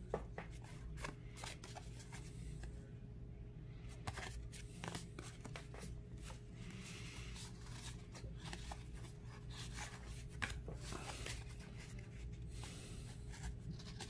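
1987 Fleer baseball cards slid one behind another in the hands: soft, irregular scrapes and clicks of card stock rubbing, with a faint steady hum underneath.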